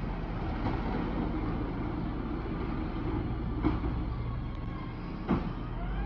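Diesel engine of a CCC LET2 garbage truck with a Pendpac rear-loader body, running steadily as the truck pulls away. Two sharp clanks come from it a little past halfway and near the end, followed by a faint rising whine.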